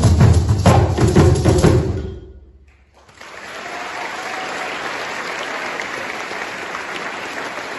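Group drumming on congas and tall carved drums struck with sticks, which stops about two seconds in. After a short gap, steady applause follows.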